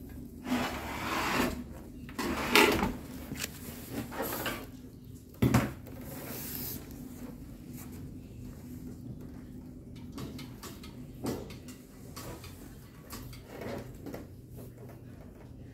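Handling noises from a new small gasoline engine being moved and worked on against a wooden pallet: a few separate knocks and rubs, the loudest about two and a half seconds in, over a faint steady hum.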